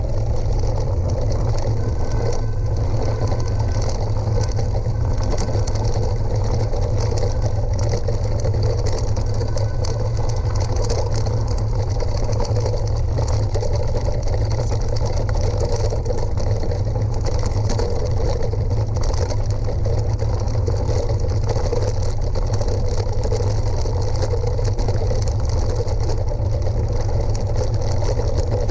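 Steady wind rumble on the action camera's microphone, with mountain bike tyres rolling over a gravel forest track at speed.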